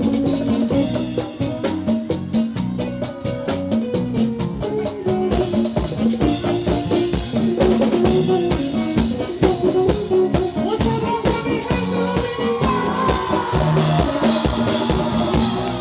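Live bachata band playing loud through the stage PA: a drum kit and congas keep a busy rhythm under electric and acoustic guitars.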